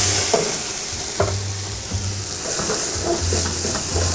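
Vodka sizzling and flaring up in a hot frying pan of roasted garlic and chili flakes, a steady sizzle as the alcohol burns off in a flambé.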